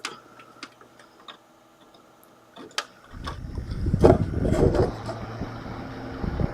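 A few small clicks of the fan cable being fitted, then, about three seconds in, a Corsair ML140 140 mm case fan starts up at 40% speed: a surge of rushing air with low buffeting that settles into a steady whir.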